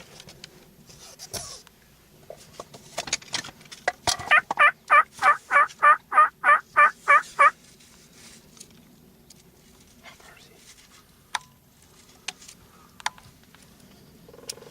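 Turkey yelping: a rapid, loud run of about a dozen yelps lasting some three seconds, starting about four seconds in. Scattered light clicks and ticks come before and after it.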